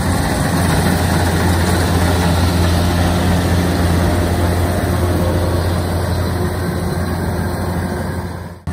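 Kubota DC-93 combine harvester running steadily with a loud, even low drone from its diesel engine as it cuts and threshes rice. The sound fades out sharply just before the end.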